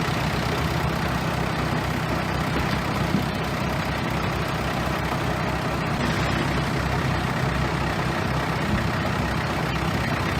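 Bulldozer's heavy diesel engine running steadily.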